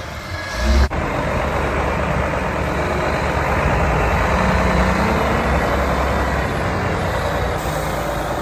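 Diesel engine of a Terberg TT222 terminal tractor running steadily and loudly. There is an abrupt break just under a second in, after which the steady running continues.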